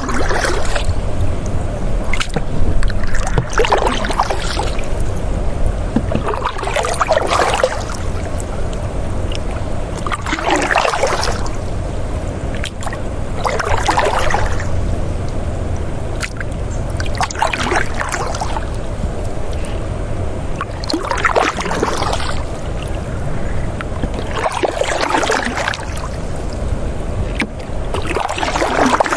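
River water flowing over a low steady rumble, with a rush of splashing water that swells and fades about every three and a half seconds.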